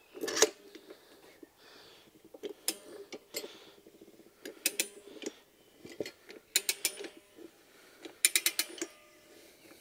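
Rabaconda manual motorcycle tire changer being levered: the steel lever and mount head clicking and clacking against the wheel rim in about six short clusters as the bead of a stiff rear tyre is forced over the rim.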